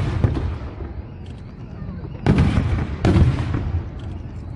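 Aerial firework shells bursting outdoors: the fading tail of one burst, then a loud new burst a little over two seconds in, with several sharp peaks over about a second before it dies away.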